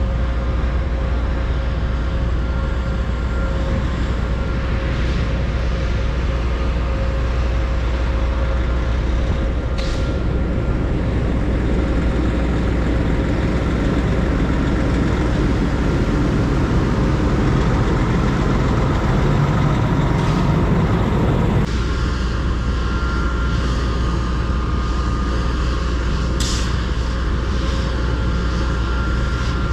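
A semi truck's engine, a Cummins X15 in a Kenworth W900L, running steadily with a constant low hum. It grows louder over several seconds and then drops back sharply about 22 seconds in.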